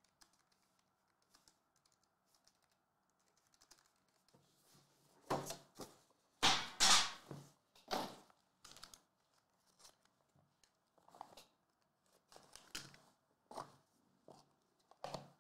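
A sealed trading-card box and its packaging being handled and opened: scattered rustling, tearing and clicks of cardboard and plastic, starting about five seconds in, with the loudest stretch a couple of seconds later.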